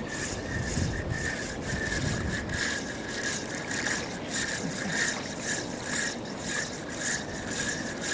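Fishing reel being cranked: a rhythmic rasping whir, about two strokes a second, over the steady rush of floodwater.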